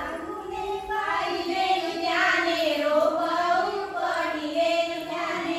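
Women and girls singing a folk song together in high voices, the melody running on without a break.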